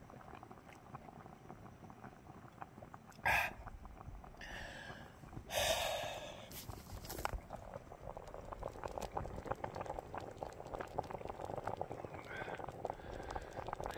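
A short sharp sound about three seconds in, then a loud breathy exhale after a drink of beer about five and a half seconds in, over the fine crackling bubble of curry simmering in a pot.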